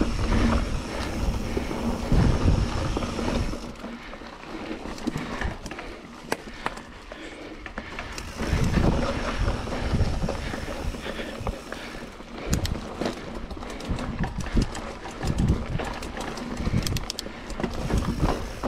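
Mountain bike ridden over a rooty dirt singletrack: tyre noise with irregular knocks and rattles as it hits roots and bumps, and wind buffeting the microphone.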